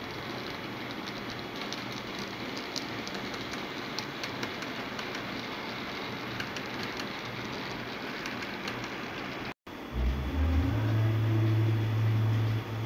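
HO-scale model train rolling along the track: an even rolling noise from the locomotive and coil-car wheels on the rails, with scattered light clicks. After a break about three-quarters through, a louder steady low hum takes over.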